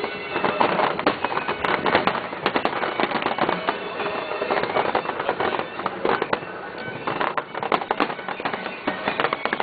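Fireworks going off in rapid succession: a dense, continuous crackle of many small bursts with no pause.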